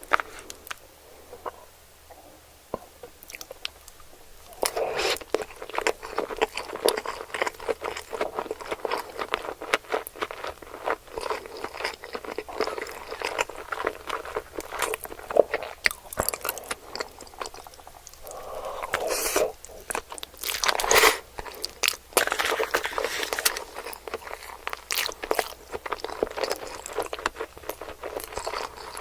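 Close-miked mouth sounds of a person biting and chewing sushi with a crunchy texture. A few faint clicks at first, then steady crunchy chewing from about five seconds in, with a few louder bites near the middle.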